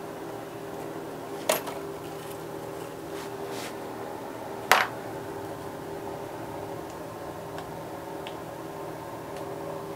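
Metal head gasket being peeled off a Honda R18 engine block, with two sharp metallic clinks, one about a second and a half in and another near five seconds, over a steady background hum.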